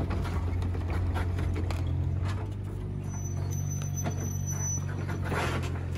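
A Doosan mini excavator's diesel engine running steadily with a low hum. A thin, high squeal sounds for about two seconds in the middle, with a few faint knocks.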